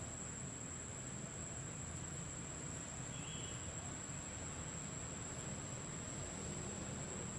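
Insects, like crickets, singing steadily in one unbroken high tone over a low outdoor rumble, with a brief chirp about three seconds in.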